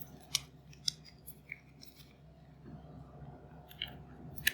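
Small sharp plastic clicks and snaps, about half a dozen at irregular intervals, as the hooks of a replacement headband's top cover are pressed into place on Bose QC-15 headphones.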